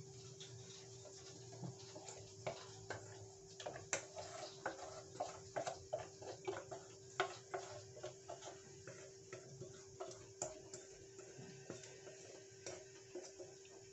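A spoon clicking and knocking irregularly against a stainless steel bowl as thick glutinous rice flour batter is poured and scraped out into a steel tray, with a steady faint hum underneath.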